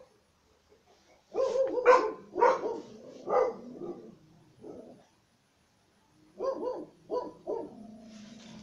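Sarplaninac puppy barking in play: a quick run of short barks, then a few more about six seconds in.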